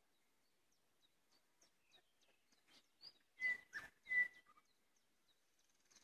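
Nightingale singing: a run of soft, short clicking notes, then three loud, sharp notes with a whistled tone about halfway through.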